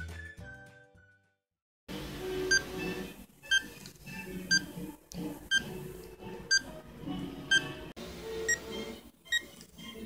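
Short, high electronic beeps, about one a second, as an air conditioner's set temperature is stepped down by repeated presses on its remote. Music fades out in the first second before the beeps begin.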